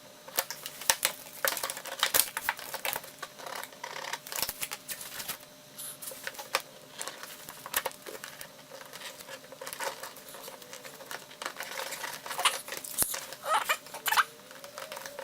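Razor knife scraping and slicing through a boot to shorten it by two inches, with irregular clicks, scrapes and handling rustle.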